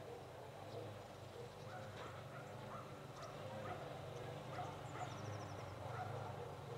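Faint outdoor ambience: a steady low hum under short, repeated calls about every half second, with a brief rapid high trill about five seconds in.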